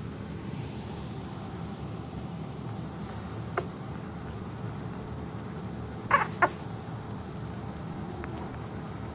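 Three-week-old Pomeranian puppy giving short, high squeaks: a single brief one, then two louder ones in quick succession about six seconds in, and a faint one near the end.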